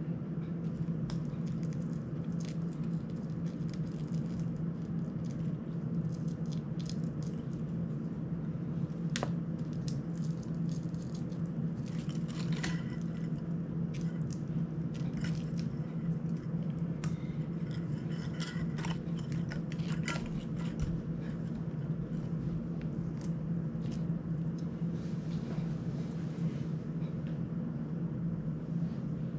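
Small clicks, rattles and scrapes of hands handling a cinewhoop drone's plastic frame and a camera strap, coming thickest in the middle. A steady low hum runs underneath.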